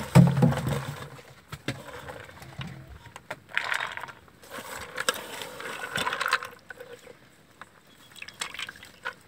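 Handfuls of soaked chana dal being scooped by hand and dropped into a steel bowl, the wet lentils rattling and scraping on the metal in a few separate spells. A brief low hum is loudest at the very start.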